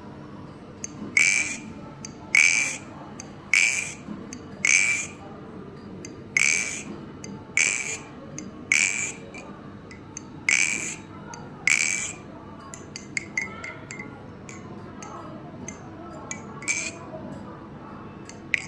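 A balisong trainer with 7075 aluminium channel handles on bushings and zen pins being flipped, its handles snapping shut with a bright, glassy ringing clack, about nine times a second or so apart. After that come softer, quicker clicks and rattles of the handles and pins.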